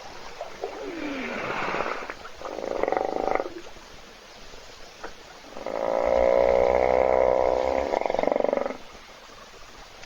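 Hippopotamus snoring: two shorter breaths in the first few seconds, then a longer, louder one about six seconds in that lasts about three seconds.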